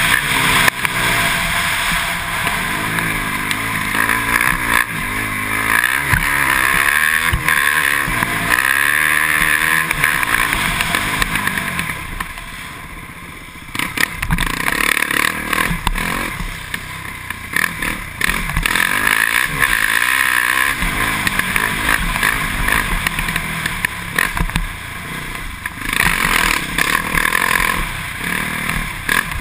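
Can-Am DS450X MX quad's single-cylinder four-stroke engine revving up and down as it is ridden hard, heard on board. The engine falls off for a couple of seconds about halfway through, then picks up again.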